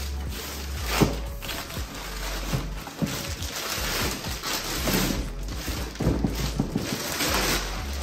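Clear plastic bag crinkling and crackling as it is stripped off a cardboard box, over background music with a low bass line.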